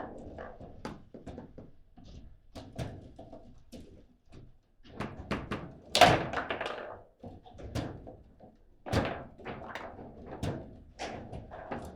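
Table football play: the ball struck by the player figures and banging off the table walls, and the rods knocking, in an uneven run of sharp knocks. The hardest knock comes about six seconds in, another strong one about nine seconds in.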